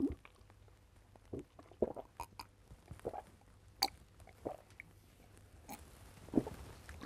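A man drinking water from a small glass: a run of sips and swallows, with a couple of sharp little clicks about four and six seconds in.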